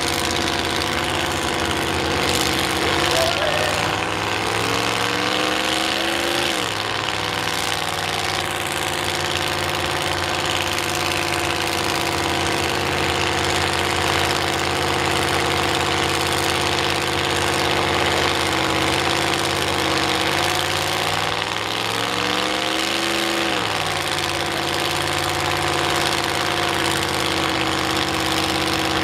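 Cadillac engine of an old International mud-bog pickup idling while the truck sits stuck in the mud pit. It revs up twice, each time rising for a couple of seconds and then dropping back sharply to idle, once about a quarter of the way in and again about three quarters in.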